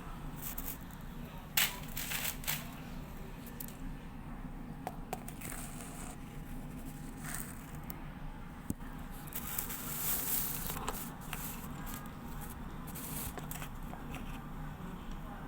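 Rustling and crinkling of a mesh net filter being handled and fitted over a washing machine's lint-filter frame, in irregular short bursts over a low steady hum.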